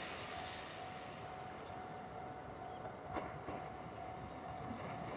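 Ichibata Electric Railway 1000 series electric train approaching at low speed: faint running noise with a thin steady hum, and a single sharp click about three seconds in.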